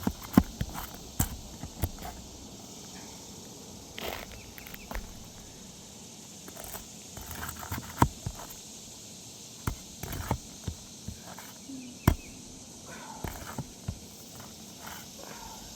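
Asphalt roof shingles being worked loose by hand and tool to get at their nails: irregular scraping, rustling and tapping, with several sharp clicks spread through.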